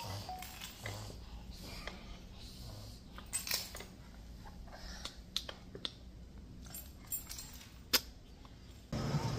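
Scattered light mechanical clicks and knocks over a steady low hum. Near the end, a louder steady noise starts abruptly.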